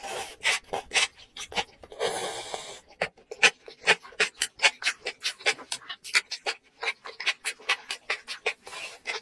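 Close-miked mouth sounds of eating a big mouthful of sauce-coated enoki mushrooms: a wet slurp as it goes in and another about two seconds in. Then steady wet chewing, about three clicks a second.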